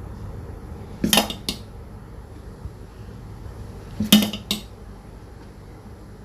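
Metal idli steamer plates and pot clinking and knocking: two pairs of sharp clinks, about a second in and again about four seconds in.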